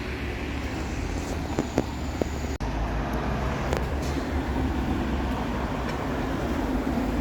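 Road traffic: a motor vehicle's engine and tyres rumbling steadily, slowly growing louder, with a brief dropout a little over two seconds in.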